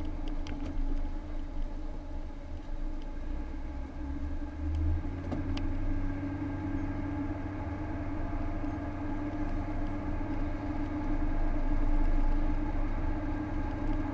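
Car driving along a highway, heard from inside the cabin: a steady engine and road drone with a constant hum, the low rumble growing somewhat stronger about five seconds in.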